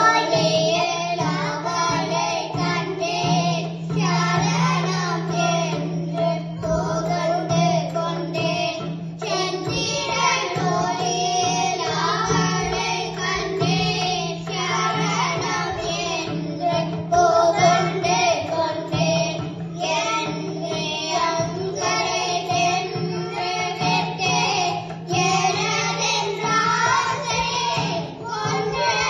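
A group of children singing together into microphones, with music accompanying them.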